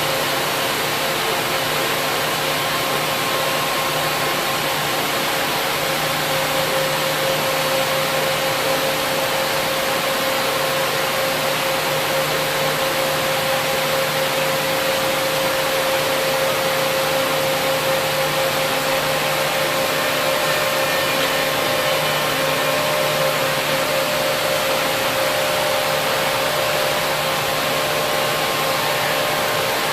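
SNK CNC gantry profiler running under power: a steady hiss with constant whining tones that hold unchanged throughout.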